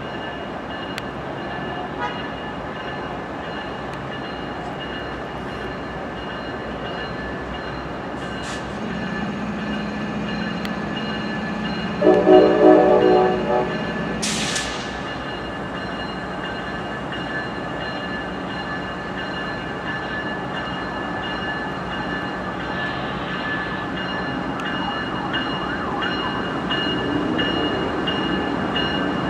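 Steady hum and whine of idling locomotives in a rail yard. About twelve seconds in, a locomotive horn sounds a chord for a second and a half, and a short burst of air hiss follows right after it.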